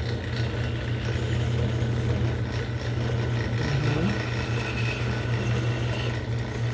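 Small lathe running with a steady low motor hum.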